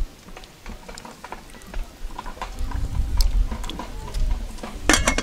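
Cooking over a wood fire with an aluminium pot: light scattered clicks and crackles, a low rumble about halfway, and a louder clatter of the pot and its lid being handled near the end.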